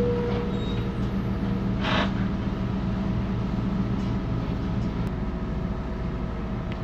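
Daewoo BS106 city bus engine idling steadily, heard from inside the cabin while the bus waits at a red light, with a short hiss about two seconds in.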